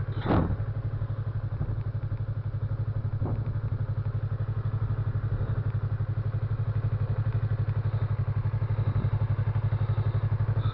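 Motorcycle engine idling with a steady, rapid low pulse. A brief falling sweep sounds just after the start.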